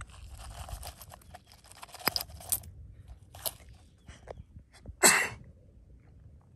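Coins tipped out of a small metal jar, clinking and sliding onto loose dirt and gravel, with the crunch of soil under the jar and fingers. About five seconds in comes a short, loud rasp.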